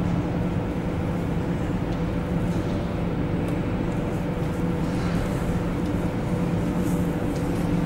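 Steady low mechanical hum with a few held tones, even throughout.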